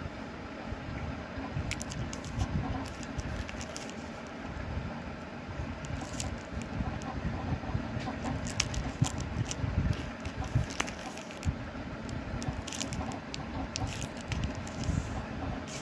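Plastic VCD cases in cellophane wrappers handled and shuffled by hand: irregular clicks, crinkles and rubbing, over a low rumble of handling noise.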